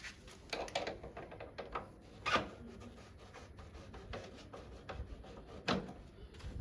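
Hand tools working on motorcycle parts during a teardown: scattered metallic clicks and rubbing, with a louder knock a little over two seconds in and another near the end.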